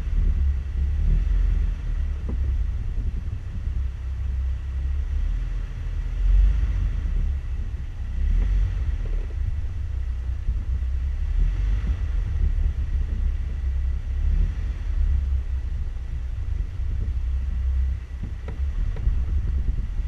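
Off-road 4x4 engine running low and steady as the vehicle crawls slowly over rocks, a continuous deep rumble.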